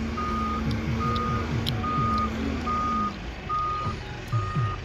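Travel or reversing alarm of a Doosan DX140W wheeled excavator beeping steadily as the machine moves, one short high beep about every 0.8 seconds, six in all. A diesel engine runs loudly underneath.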